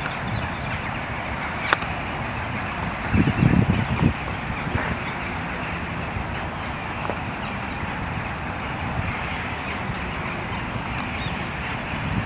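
Steady outdoor background noise with a brief low rumble about three seconds in and a single click a little before it.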